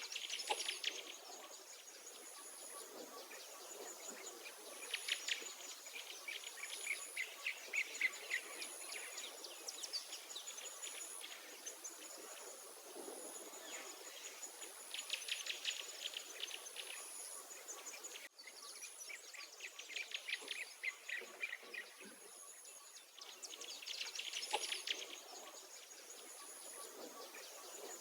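Wild songbirds singing outdoors: rapid trills and warbling phrases come in bursts every few seconds. Underneath, a high thin note repeats about once a second over a faint steady background hiss.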